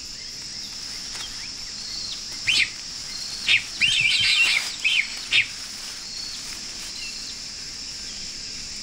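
Jungle ambience: a steady, high insect drone with a cluster of short, sharp bird chirps in the middle.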